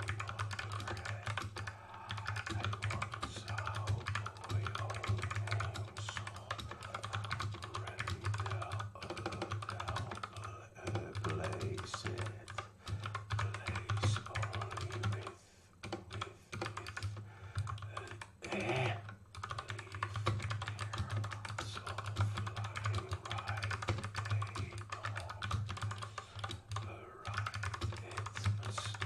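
Fast continuous typing on a GK61 60% mechanical keyboard with Kailh Box Pink switches and PBT keycaps, a steady rapid clatter of keystrokes with a brief pause about halfway through.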